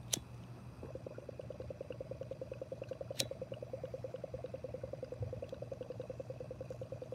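Water bong bubbling in a rapid, steady gurgle as smoke is drawn through it, starting about a second in. A sharp click just at the start and another about three seconds in.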